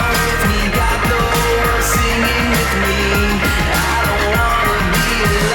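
Pop-rock background music with guitar and a steady beat; the beat drops out near the end, leaving a held chord.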